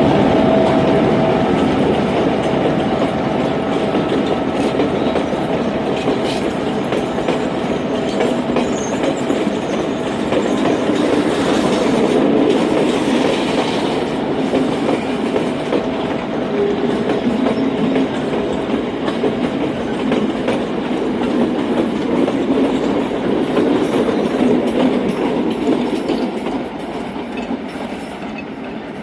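Passenger train running along the track: a steady rumble with wheels clicking over the rail joints. It gets somewhat quieter near the end.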